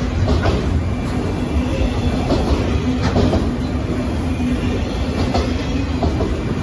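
Freight train of autorack cars rolling past at close range: a steady rumble of steel wheels on rail, with scattered clacks and a faint steady tone underneath.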